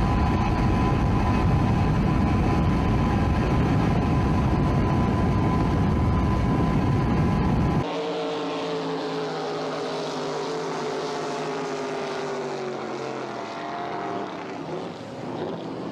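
Motorboat engines running at speed. First comes loud, dense engine and wind noise from on the water. About eight seconds in, an abrupt change brings in a racing boat's engine passing by, its pitch falling steadily.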